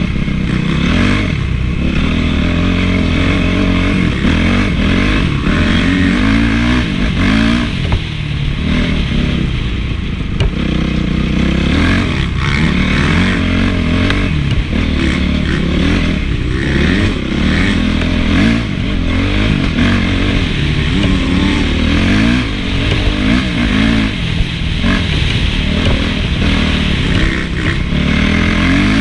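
Honda CRF450 single-cylinder four-stroke motocross engine being ridden hard, its pitch rising and falling every second or two as the throttle is opened and closed and the gears change.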